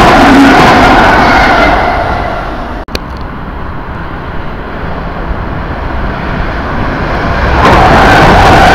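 Passenger train coaches passing close on the track, a loud rushing rumble of wheels and air that dies away about two seconds in. A sharp click comes near three seconds, and a second intercity train arrives near the end, loud again as it passes.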